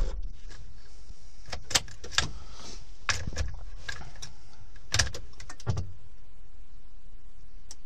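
A scatter of light clicks and small rattles from the ignition key and the keys on its ring being handled and turned, between cold-start attempts on a Renault Kangoo II 1.5 dCi diesel; the engine is not running.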